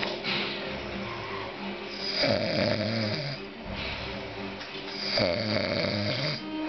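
A man snoring: two long snores about three seconds apart, each lasting a little over a second.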